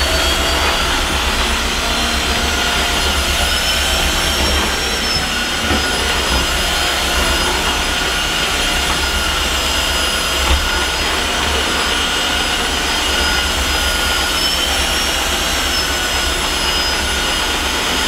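Tineco Floor One S3 cordless floor washer running steadily with its motor whine, sucking up hair on a tiled floor in auto mode, which raises the suction when it detects dirt. The whine steps up slightly in pitch about four seconds in and settles back down near the end.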